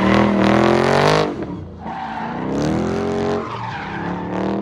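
A car engine revving hard in three rising swells, its pitch climbing on each.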